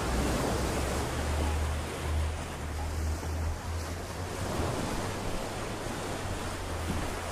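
Small surf waves breaking and washing up over the sand and rocks, with wind buffeting the microphone as a low rumble underneath.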